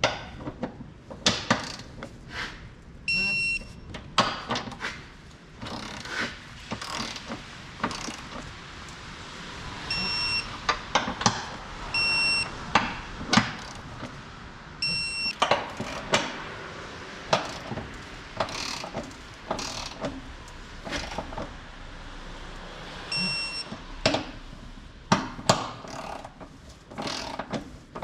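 Irregular metallic clanks and knocks of hand tools and suspension hardware being worked on a car, with a short electronic beep every few seconds.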